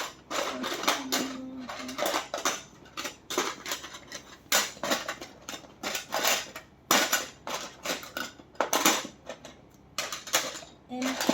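Plastic magnetic building tiles being handled and rummaged through, giving a run of irregular sharp clicks and clacks.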